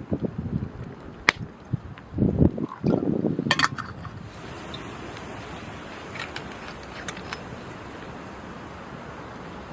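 Wood campfire burning in a fire pit: a few sharp pops and uneven low rumbling bumps in the first few seconds, then a steady hiss with occasional faint crackles.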